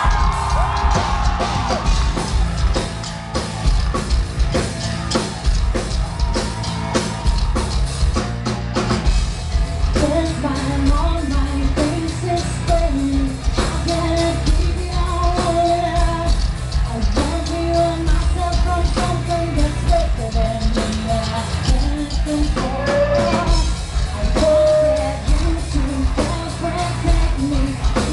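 Live metal band playing loud: pounding drums, distorted guitars and bass, with a woman's sung lead vocal coming in about ten seconds in. Recorded from within the crowd, heavy in the low end.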